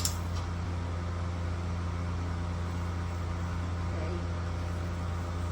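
Steady low machine hum at an even level, with a short click at the start.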